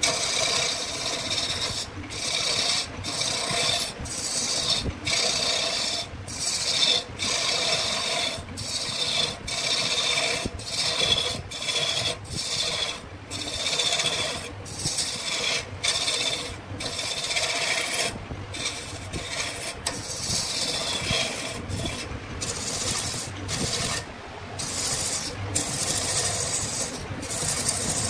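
A hand tool scraping across wood in repeated strokes, about one a second.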